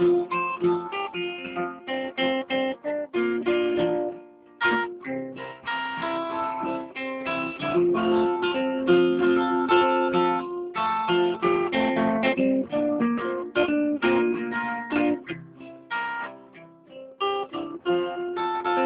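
Acoustic guitar instrumental break in a blues, played with busy picked and strummed notes.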